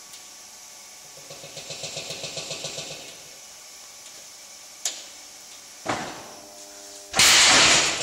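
Sawmill log-conveyor machinery working as a log is moved: a rapid rattle of about seven pulses a second for under two seconds, then a sharp clank with metallic ringing, and near the end a loud noisy burst lasting under a second.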